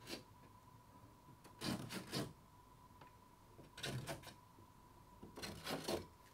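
Pencil marking screw-hole positions on a chipboard wall: four short bursts of scratching about a second and a half to two seconds apart.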